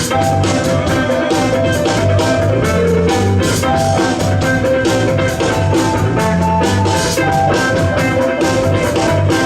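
Live band playing an instrumental jazz-fusion number, with drum kit, bass and guitar.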